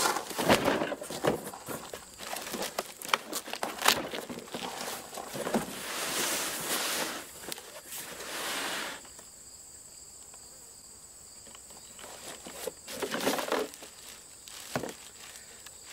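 A cardboard box is set down on a table, its flaps are pulled open and items are lifted out, giving a run of knocks, scrapes and crinkling plastic, with a quieter gap in the middle. A faint steady high insect drone runs underneath.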